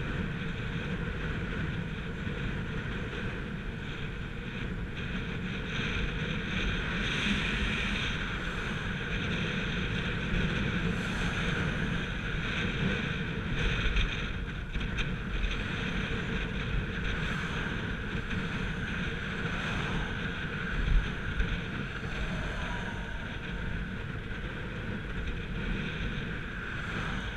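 Wind rushing over the microphone of a bike-mounted camera while a road bicycle rides fast downhill, with the tyres rumbling on coarse asphalt. There are a couple of sharp bumps, one about two thirds of the way in.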